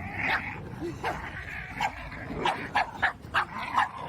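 A dog barking in short, repeated barks, coming faster in the second half.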